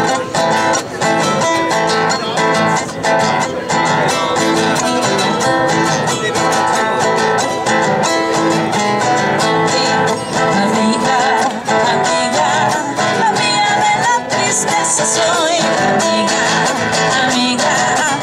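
An acoustic guitar and a charango play a Latin American song together, with singing that wavers in pitch from about halfway through.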